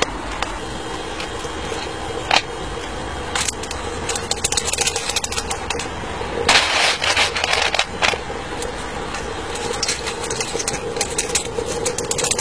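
Steady hum of the electric fan drawing the charcoal fire in a miniature live-steam locomotive's firebox, with metallic scraping and clattering at the firebox door, loudest for about a second and a half a little past the middle.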